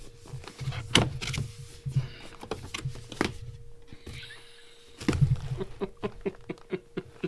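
Cardboard lens box being handled and opened by hand: sharp knocks and taps on the cardboard with scraping and rustling between, and a busier patch of low thuds and rapid clicks about five seconds in.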